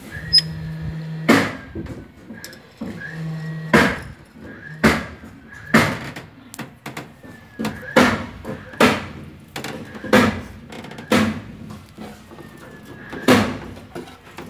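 About ten sharp, loud knocks at an uneven pace, a second or two apart, each ringing briefly.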